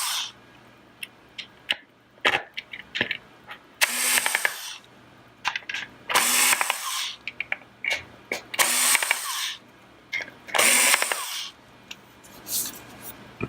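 A power screwdriver runs in four short whirring bursts, each under a second, as it backs screws out of the panel's casing. Small clicks of screw and plastic handling come between the bursts.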